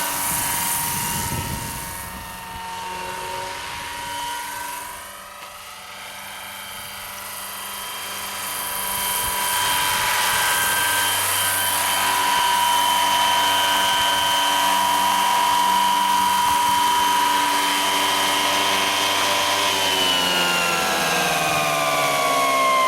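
Electric RC scale helicopter with a four-blade rotor in flight: a steady whine from the electric motor and drive gearing over the rotor sound. It grows fainter a couple of seconds in, swells back and holds steady, then its pitch falls steadily near the end.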